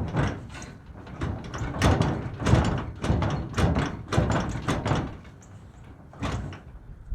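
Truck toolbox lid and lock being worked: a string of metal clunks and knocks, roughly one every half second, as the lid is shut, locked and tugged. The lock is not yet catching cleanly; the owner thinks it needs a little more fixing.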